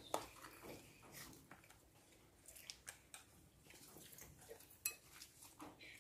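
Faint, scattered light clicks and taps of eating utensils, from chopsticks against a bowl and a small plastic spoon knocking on a wooden box, over quiet room tone. Sharper clicks come just after the start and about five seconds in.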